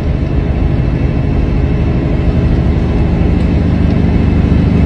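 Semi truck's diesel engine running, a steady low drone heard inside the cab.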